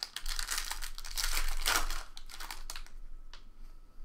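Trading-card pack wrappers crinkling and tearing as the packs are ripped open by hand, a dense crackle that is loudest in the first three seconds and then dies down.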